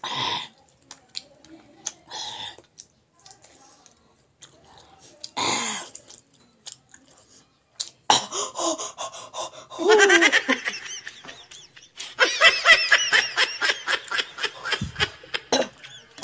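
A woman laughing hard in rapid, high-pitched bursts from about halfway on, after a short slurp at the start and a few quieter mouth and breath sounds.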